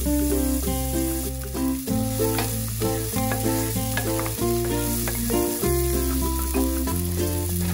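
Background music with a bass line that changes note about once a second, loudest in the mix, over diced onion and curry powder sizzling in oil in a nonstick pan, stirred with a wooden spatula.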